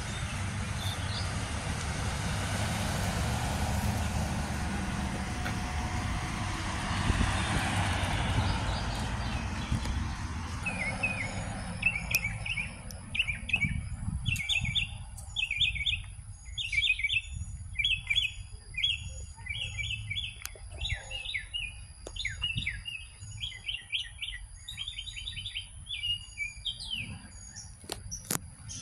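A vehicle goes by with a low, steady rumble that swells and fades over the first ten seconds. Then a songbird sings a long string of quick chirps against a thin, steady, high insect trill, with a sharp click near the end.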